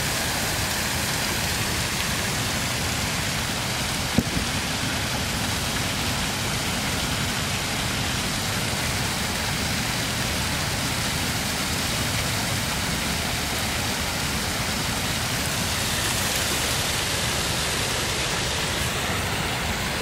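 Steady rush of a garden waterfall cascading over rocks into a pond. A single short click about four seconds in.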